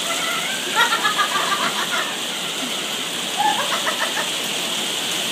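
Heavy rain falling steadily. Two short bursts of quick, repeated high sounds break through it, about a second in and again just past three seconds.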